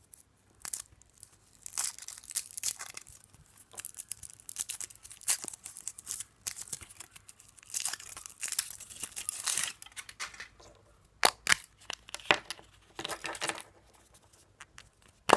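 Foil wrapper of a Kinder Surprise chocolate egg being torn and crinkled by hand, in irregular bursts of crackling, with a few sharp clicks about two thirds of the way through as the egg and its plastic toy capsule are opened.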